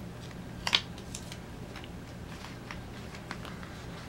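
Paper planner stickers and pages being handled: one sharp paper crackle a little under a second in, then scattered faint light taps and rustles.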